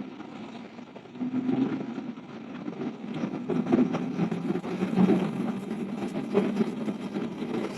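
Chainsaw engine running unevenly, its pitch and level going up and down.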